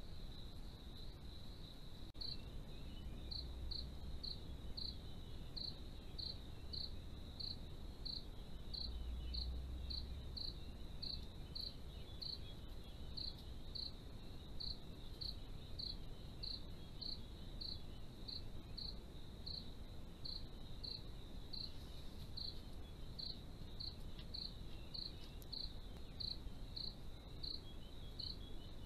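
A cricket calling steadily: one unbroken high trill with evenly spaced chirps, about three every two seconds.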